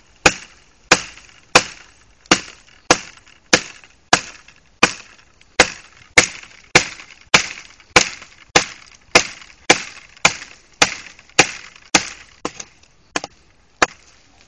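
A heavy Gerber survival knife chopping into a thick wooden branch like a hatchet, about two dozen sharp blows at a steady pace of just under two a second. The last few blows are lighter.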